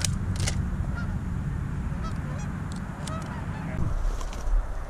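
Scattered goose honks and clucks over a steady low rumble that drops away near the end.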